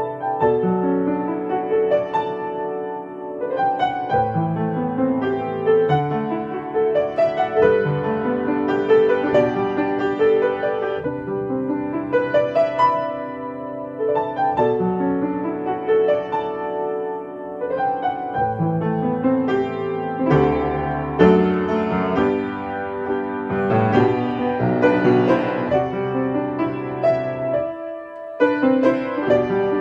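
Solo piano playing a calm new-age piece: flowing melody notes over sustained bass chords. Near the end the playing briefly thins to a short break, then picks up again.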